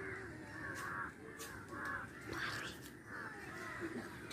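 Crows cawing outdoors, a string of harsh calls following one another about every half second to second.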